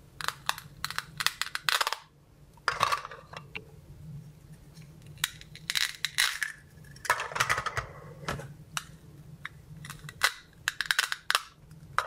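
Plastic toy fruit and vegetable halves joined with velcro being pulled apart, with short rasps of velcro tearing. The hard plastic pieces click and clatter against each other and into a bowl of more pieces.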